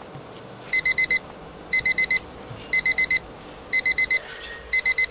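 Mobile phone ringing with a beeping ringtone: five bursts of four quick, high beeps, about one burst a second.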